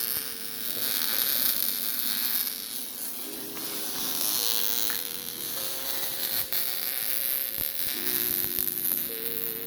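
MIG welding arc on mild steel, a steady crackling hiss as a bead is laid.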